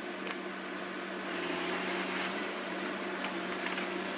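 Heavy machinery running steadily: an even engine hum with hiss, growing somewhat louder about a second in.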